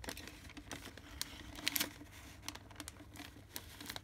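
Baking paper crinkling and rustling as it is wrapped around a glass and its masking-tape edge pressed down, in irregular small crackles and ticks, a couple of them louder a little before the middle.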